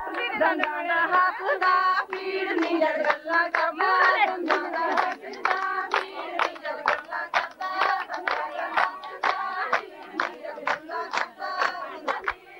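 Women singing a Punjabi boli together over steady rhythmic hand clapping, the beat of a giddha folk dance. The singing is strongest in the first few seconds, then thins while the clapping keeps on.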